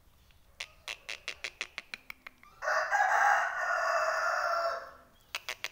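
Black francolin giving one harsh, grating call about two seconds long in the middle. A quick run of sharp clicks comes before it and again near the end.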